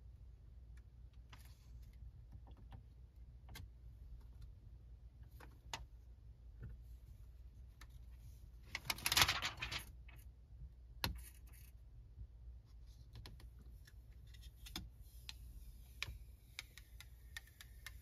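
Faint handling of a screen protector on a car's touchscreen: scattered light clicks and taps of fingertips and the plastic sheet, with one louder rustle about nine seconds in.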